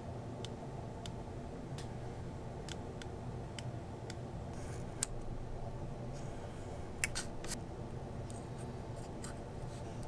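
Scattered small clicks and taps from handling a thin ribbon HDMI cable and a piece of heat shrink tubing on a cutting mat, with a sharper click about five seconds in and a cluster about seven seconds in. A steady low hum runs underneath.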